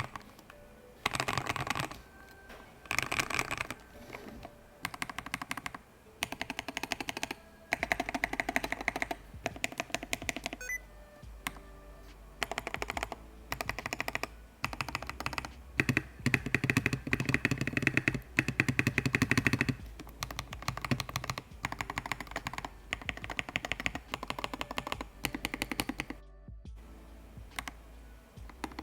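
Typing on a Zeta 61 Pro mechanical keyboard fitted with Akko CS Radiant Red linear switches and Honey Milk PBT keycaps: rapid keystrokes in bursts of a second or two, with short pauses between.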